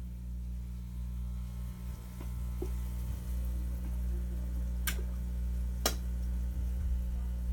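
Steady low electrical hum, with two sharp clicks about a second apart, about five and six seconds in.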